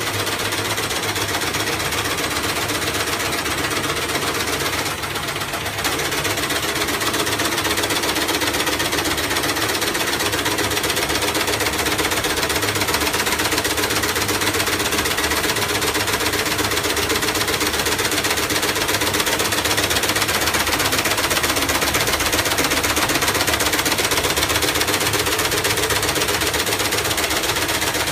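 Firecracker-making machines running with a loud, fast, continuous mechanical clatter. The clatter drops briefly about five seconds in, then comes back.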